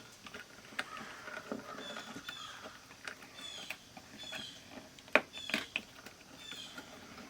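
Small parts of an opened analog multimeter being handled around its selector switch: scattered light clicks and taps, with two sharper clicks about five seconds in and short high squeaks in between.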